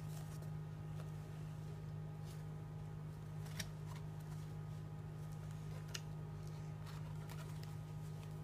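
Pages of a picture book being handled and turned, a few soft clicks and rustles spread through the pause, over a steady low hum.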